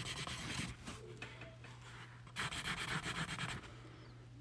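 Rapid back-and-forth scribbling, writing being scratched out. It comes in two bouts, one in the first second and another from about two and a half to three and a half seconds in.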